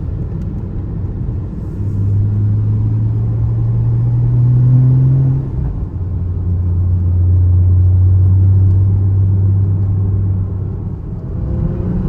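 A car heard from inside the cabin: a steady low road rumble with an engine hum that rises slowly in pitch from about two seconds in, drops at about six seconds, then holds steady and lower.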